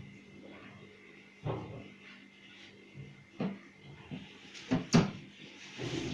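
A few sharp knocks and clatters, the loudest a pair just before five seconds in, over a steady faint hum.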